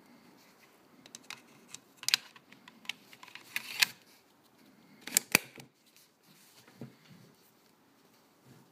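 Sharp mechanical clicks and handling rustle from a small black hard object being turned in the hands. One click comes about two seconds in and a cluster just before four seconds; the two loudest come close together about five seconds in.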